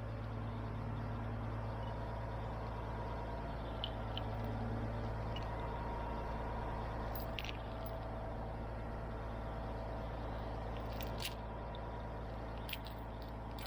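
An engine running steadily with an even low hum, broken by a few faint sharp clicks.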